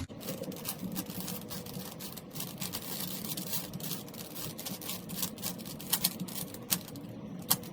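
A 3x3 Rubik's cube being scrambled by hand: its plastic layers twist in quick succession, making rapid clicking and rattling, with a few sharper clicks near the end.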